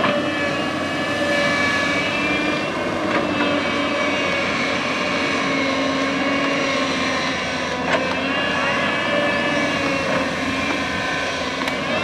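JCB tracked excavator's diesel engine running steadily under load, with the whine of its hydraulics shifting slightly in pitch as the boom and bucket dig. There are a couple of sharp knocks, about three and eight seconds in.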